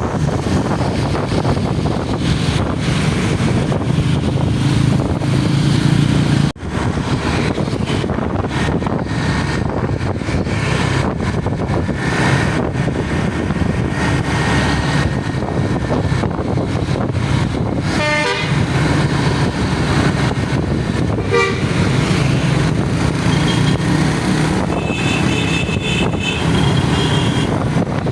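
Multi-note 'basuri' telolet bus horn playing short runs of stepped notes, with a held chord of several notes near the end, over a steady rumble of engines and passing traffic.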